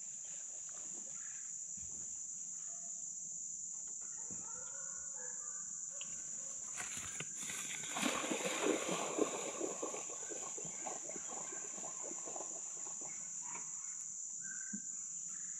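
Steady high-pitched insect drone from the woods, with a few seconds of rustling through tall grass about eight seconds in as a hunting dog runs up the trail.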